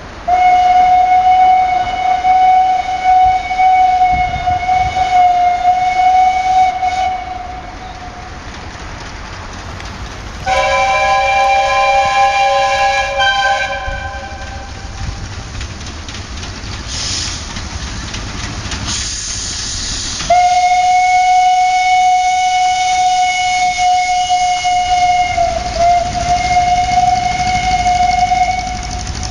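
Train whistle sounding in long steady blasts: one note held for about seven seconds, a shorter chord of several notes around ten seconds in, then the single note again for about eight seconds. Short hisses come around the middle, and a low rumble runs underneath.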